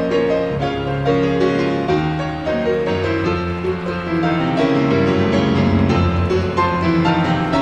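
Classical piano music, slow sustained notes in several voices, with deeper bass notes coming in about three seconds in.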